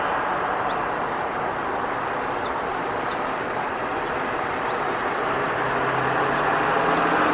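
Steady road and engine noise heard inside a moving car, with a low hum coming in near the end.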